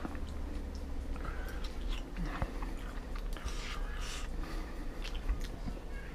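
A person chewing a mouthful of meatball and pasta, soft scattered mouth noises with a few faint clicks, over a low steady hum.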